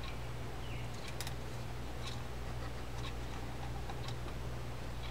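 Faint, irregular small clicks of metal parts on a Penn Fierce II 4000 Liveliner spinning reel being handled and fitted, over a steady low hum.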